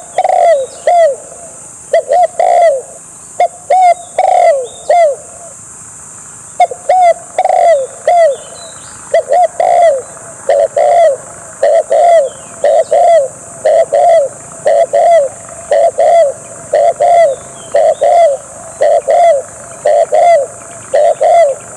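Spotted dove cooing: loud, repeated short coos that slide down in pitch, in phrases of two or three notes about a second apart, with a short break about five seconds in.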